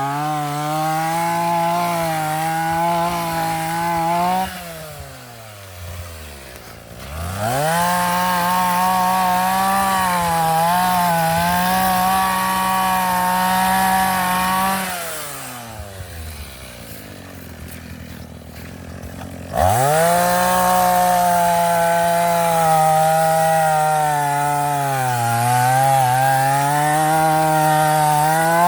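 Small two-stroke engine of a Vulcan petrol earth auger running at high revs. Twice it drops back to a low idle for a few seconds and is then throttled up again, with brief dips in pitch while at speed.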